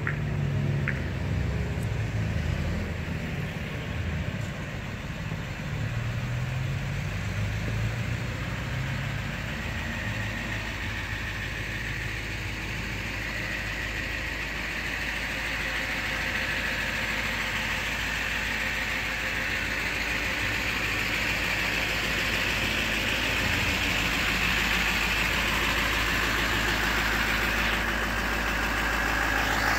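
GMC tow truck's engine idling steadily, growing gradually louder over the second half.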